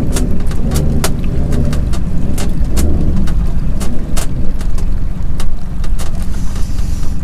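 Boat engine running with a steady low rumble while a crab-pot line is hauled in by hand, with frequent sharp clicks and knocks.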